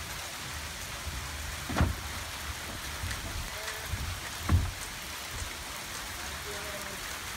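Steady rain falling, an even hiss, with two dull thumps about three seconds apart as the door frame is handled in its opening.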